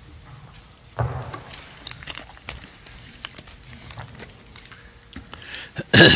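Handling noise of a microphone being passed to a questioner: scattered clicks and rustles, a low thump about a second in, and a loud bump near the end.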